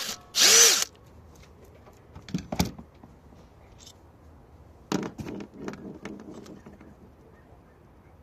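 Plastic air filter housing on a Toyota Yaris engine being unclipped and lifted off, with clicks and knocks and a short loud scraping rush just after the start. More knocks of parts and tools follow about two and a half seconds in and again around five to six seconds in.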